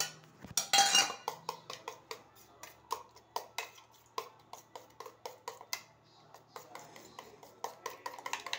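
A metal spoon beating eggs in a stainless steel bowl, clinking against the bowl's side in quick taps about three to four a second. A louder clatter of steel near the start.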